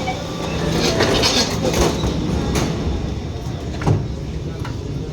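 Interior sound of an Alstom Movia R151 MRT train setting off: the door-closing beeps stop right at the start. A steady low hum follows, with running noise swelling about a second in and a single knock a little before four seconds.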